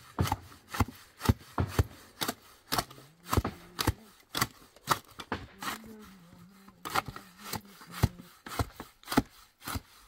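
Steel shovel scraping into a pile of cement mortar and knocking against a metal bucket as the mortar is shovelled in, in quick irregular scrapes and clinks, two or three a second.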